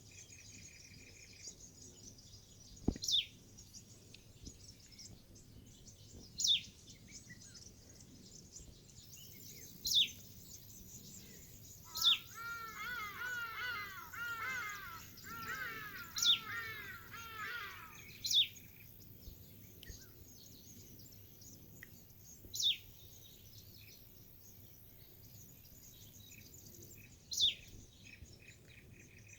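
Wild birds calling: a sharp, high whistle that slides down in pitch, repeated every few seconds, with a quick run of chattering chirps for about six seconds in the middle.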